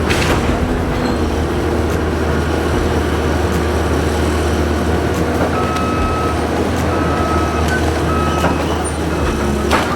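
Engine of a heavy demolition machine running steadily, with a backup alarm beeping about four times in the second half.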